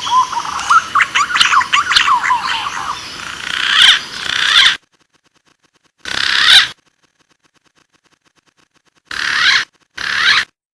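Green pigeon (punai) calling: a run of quick rising and falling whistles, then three short bursts of the same whistling separated by spells of dead silence.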